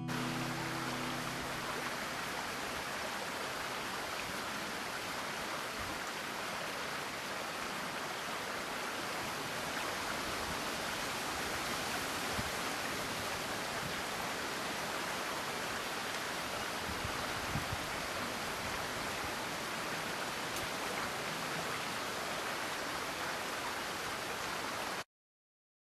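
Steady rushing of a stream's flowing water, cutting off suddenly near the end.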